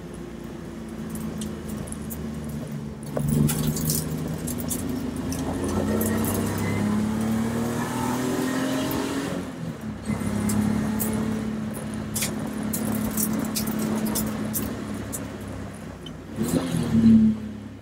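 Track car's engine heard from the open cockpit, pulling hard with its pitch climbing for several seconds, dropping at a gear change about ten seconds in, then running steadily. Near the end a short loud rise and fall in revs comes as the car brakes and downshifts. Light rattles and clicks run over it.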